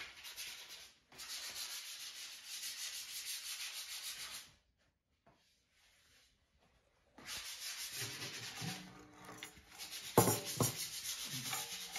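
Dry rubbing noise in two stretches, with a few seconds of near quiet between. In the last seconds the pandeiro is lifted off the bench: a sharp knock about ten seconds in, and its brass jingles rattling and ringing.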